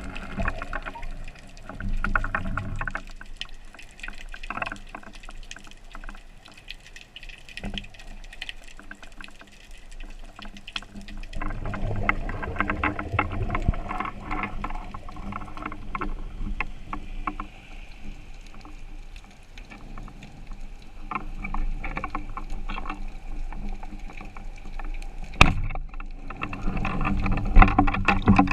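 Water sloshing and bubbling, swelling and fading over several seconds, with many small clicks and a sharp knock near the end.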